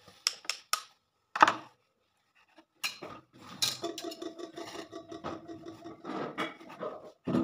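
Kitchen knife knocking a few times on a wooden chopping board, then sawing through a stack of bread slices with a continuous rasping scrape. A steady low tone runs under the sawing in the second half.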